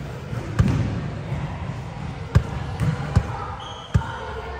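A basketball bounces on a court floor in several sharp, irregularly spaced thuds over background chatter. A short high squeak comes about three and a half seconds in.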